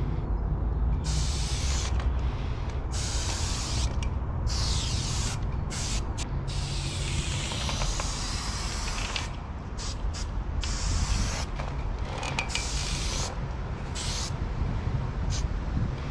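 Aerosol spray paint can (Flame Orange 400 ml, Menthol green) hissing as it paints a letter outline, sprayed in a string of bursts from about half a second to a few seconds long with short breaks between. A steady low rumble runs underneath.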